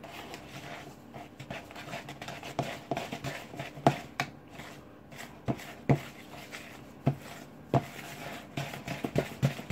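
Wooden spoon stirring and scraping a stiffening biscuit dough of creamed butter, sugar, egg and flour in a plastic mixing bowl, with irregular knocks of the spoon against the bowl's sides.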